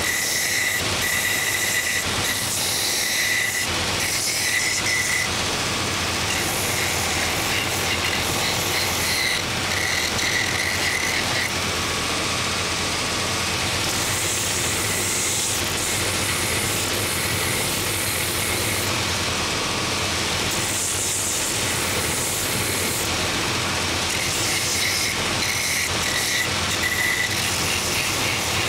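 Purpose-built last-making belt sanding machine running steadily, its coarse 24-grit belt grinding away the wood of a shoe last pressed and turned against it. The grinding hiss grows harsher at times as the wood is pushed harder onto the belt.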